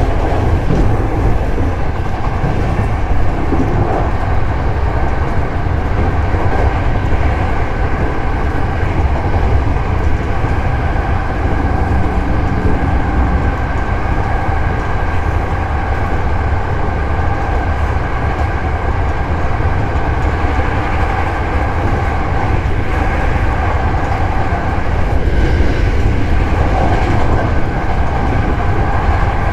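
Hankyu 7000 series electric train running at a steady speed: a continuous rumble of wheels on rail with a faint steady hum over it.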